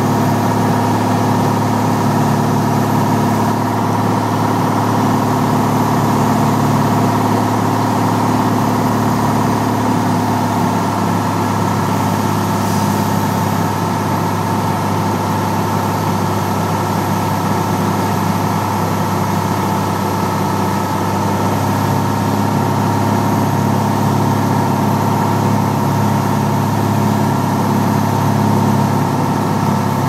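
Piper Lance's single piston engine and propeller droning steadily, heard from inside the aircraft during the landing approach, with a slight change in the engine note about a third of the way in and again past two-thirds.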